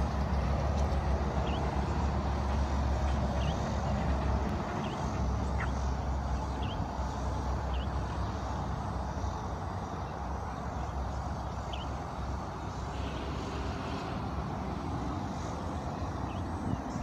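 Outdoor pond-side ambience: a steady low rumble, heaviest in the first few seconds and then easing, with faint short high chirps about once a second.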